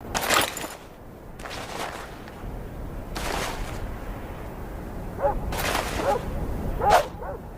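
Yatagan sword swung through the air, giving about five short swishes at uneven intervals, the last two louder.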